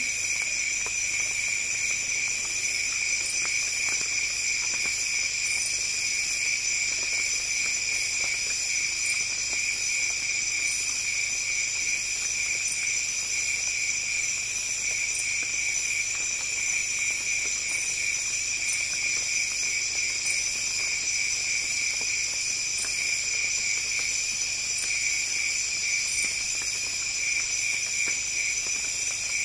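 Nocturnal rainforest insect chorus: several shrill, steady drones at different pitches, with a higher pulsing trill that repeats about once a second.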